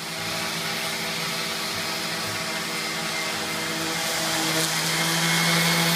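An electric motor running steadily with a loud hiss and a constant hum, growing slightly louder near the end.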